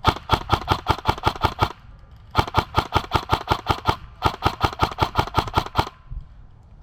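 Airsoft rifle firing three long strings of rapid shots, about seven or eight a second, with short pauses between strings.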